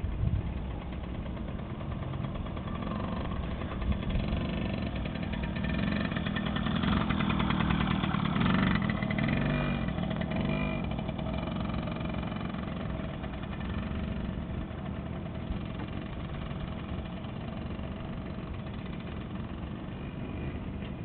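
Kawasaki KDX50 dirt bike's small two-stroke engine running as it is ridden past. It gets louder to a peak about seven to nine seconds in, then fades as the bike rides away.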